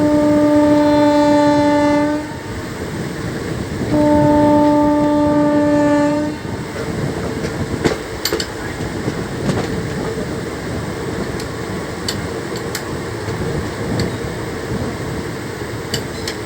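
Train horn sounding two long blasts of about two seconds each. After them comes the steady running rumble of the train on the rails, with a few sharp clicks of the wheels over rail joints.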